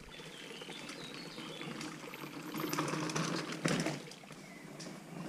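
Faint woodland ambience: an even rustling hiss with a few short bird chirps, and a single brief knock about three and a half seconds in.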